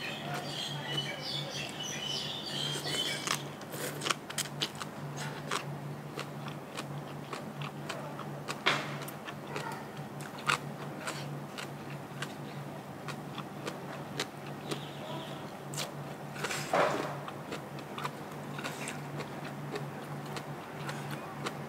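Close-up eating sounds: chewing and biting into papaya salad with raw shrimp and crisp vegetables, with many small crunches and clicks scattered throughout. Birds chirp in the first few seconds, over a steady low hum.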